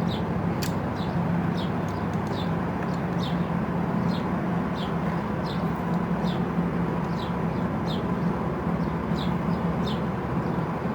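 A steady mechanical hum, with a short, high, falling chirp repeating about once a second over it.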